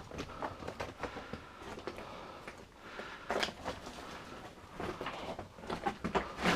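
Footsteps crunching and scraping over loose rock on a mine tunnel floor, irregular steps with a few sharper knocks of stone.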